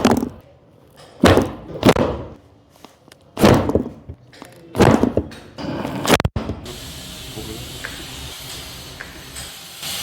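A run of about six dull thuds in quick succession during a hands-on jaw (mandible) adjustment, then one sharp click a little past six seconds in, followed by a steady hiss.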